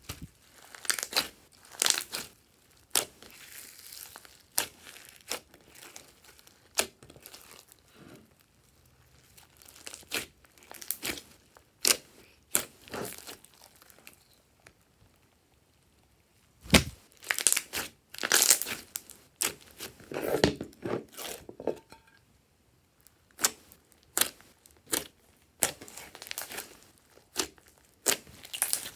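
Hands kneading, stretching and pressing a large mass of fluffy slime mixed with foam beads: irregular sticky squelches and crackling pops of trapped air, with a couple of short quiet pauses.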